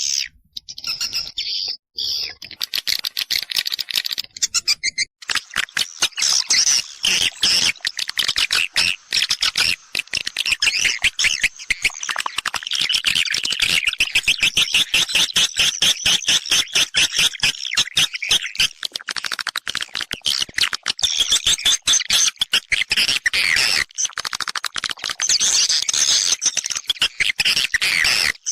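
Swiftlet-house lure recording: a dense chorus of swiftlet calls, rapid high chirps and twitters, the kind of sound played outside a nest house to attract edible-nest swiftlets. The calls are sparse and broken at first and become a continuous chorus about five seconds in.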